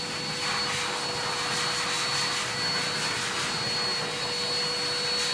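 Small cordless dog-grooming trimmer running with a steady hum as it clips the hair from between the pads on the underside of a spaniel's paw.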